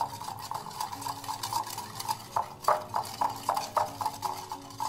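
Wire whisk beating a thick yogurt and ground-peanut batter in a glass bowl, its wires clinking rapidly against the glass, about four clicks a second.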